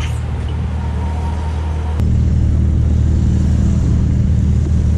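Steady low rumble of street traffic, stepping up louder about two seconds in.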